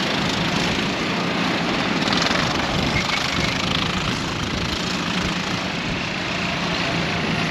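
Go-kart engines running steadily on the track, a dense buzzing drone with a faint low engine note.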